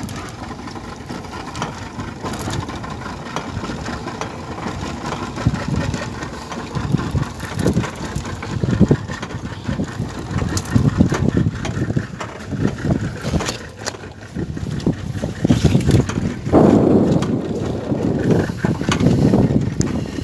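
Yamaha 75 outboard motor running on a small fishing boat in choppy sea, with irregular bursts of rushing noise that grow louder in the second half.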